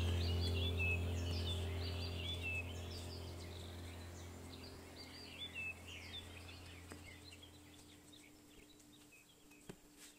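Small birds chirping and twittering over a low steady hum, the whole sound slowly fading out; the chirping dies away a few seconds before the end, leaving a couple of faint clicks.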